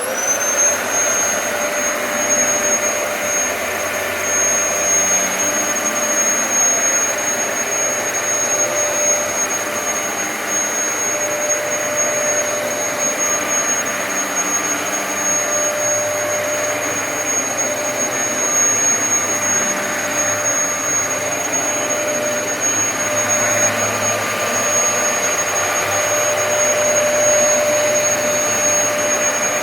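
Dyson DC33 upright vacuum cleaner with motorised brush head switched on, its motor whining up to speed within a moment, then running steadily with a high whine over a dense airflow rush.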